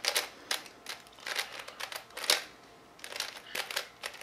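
A ShengShou 3x3 speed cube being turned fast during a timed solve: plastic layers clicking and clacking in quick bursts with short pauses between them.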